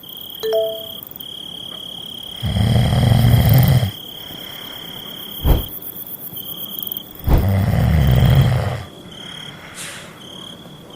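Crickets chirping steadily, with two loud snores about five seconds apart, each lasting about a second and a half. A sharp click falls between them.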